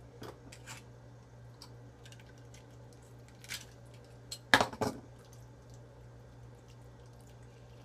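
Hands pulling the guts out of a gutted channel catfish: scattered soft wet handling sounds and small clicks over a low steady hum, with a sharp knocking clatter about halfway through.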